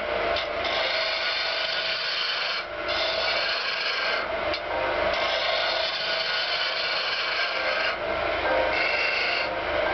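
Gouge cutting a spinning wooden spindle blank on a wood lathe: a continuous rasping hiss of shavings being peeled off over the lathe's steady hum. It breaks off briefly a few times as the tool lifts from the wood.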